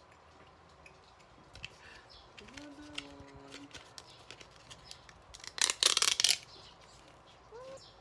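Handling of a plastic-wrapped chocolate package: scattered light clicks and crinkles, then a loud burst of wrapper crinkling a little past the middle. Two short pitched whines from a small dog come in between, the second one rising.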